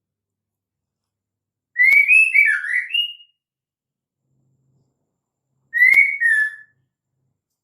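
Female white-rumped shama calling: two short bursts of clear whistled notes that glide up and down, the first about a second and a half long, the second shorter, a few seconds later.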